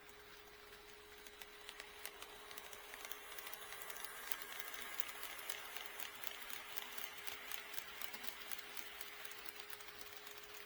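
HO scale model train running past on the layout, its wheels clicking rapidly over the rail joints. The clicking builds up over the first few seconds, is loudest around the middle and then slowly fades, over a steady faint hum.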